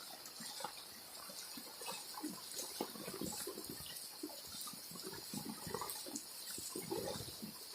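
Floodwater flowing and gurgling in irregular splashes, with a steady high-pitched hiss behind it.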